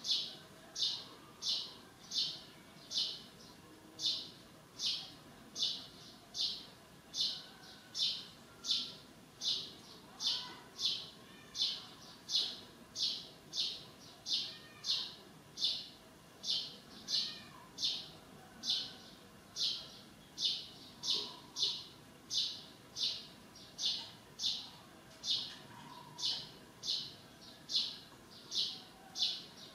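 Short, high-pitched chirps repeating evenly about one and a half times a second, with faint, softer calls underneath.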